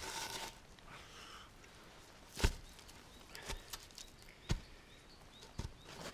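Four sharp chopping blows about a second apart, the first the loudest: the cleaver-sharpened back edge of a hand saw hewing shavings off a log.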